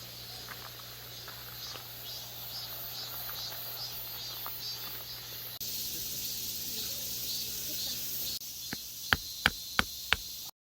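Outdoor summer ambience of insects chirping over a steady rushing haze, changing abruptly twice, with four sharp clicks close together near the end.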